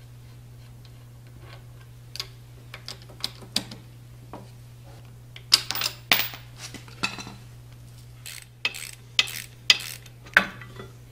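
Metal hand tools and cast-iron press parts clinking and clanking as a wrench and ratchet are handled on the press. There are irregular sharp metallic clicks, scattered at first and louder and busier from about halfway, over a steady low hum.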